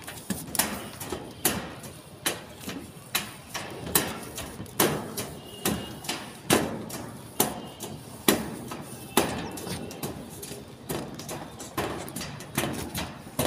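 A steady series of sharp knocks, evenly spaced at a little more than one a second.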